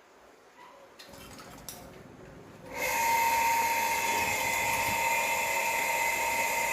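An electric device switched on about three seconds in, running with a steady high-pitched whine at constant pitch.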